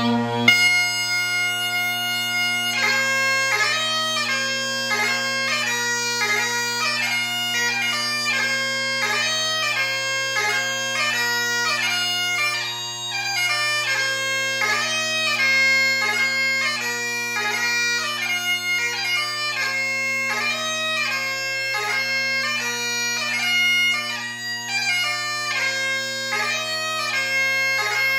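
Great Highland bagpipe: the drones sound steadily while the chanter strikes in with a held introductory note, then the melody of a strathspey begins about three seconds in and runs on with quick grace-noted fingering over the drones.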